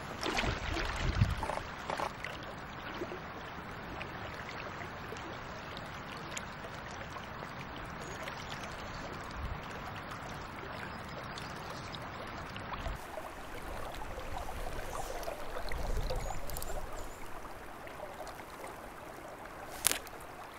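Small shallow stream flowing steadily over riffles, with a few low sloshes of water around a wading angler's legs in the first couple of seconds and a single sharp click near the end.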